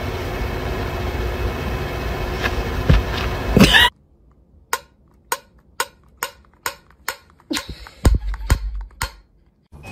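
Steady background hiss broken by a brief cough-like sound, then about a dozen sharp metallic clicks, roughly two a second, as a finger works the pull-ring on a tin can lid.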